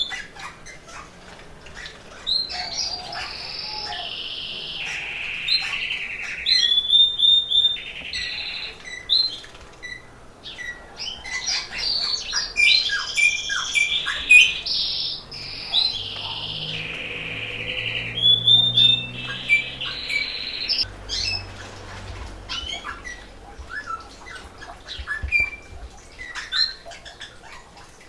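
Domestic canaries singing: long phrases of rapid trills and rolls, high-pitched, with short breaks, typical of birds coming into breeding condition.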